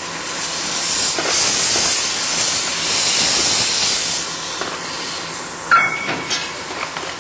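Small steam saddle-tank locomotive shunting, its open cylinder drain cocks blowing off steam in a loud hiss that swells and eases. There is a brief sharp squeal about three-quarters of the way through.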